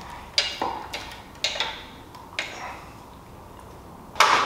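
Several light, sharp clicks and taps from hands working wiring and plastic parts behind a motorcycle fairing, with a louder knock near the end.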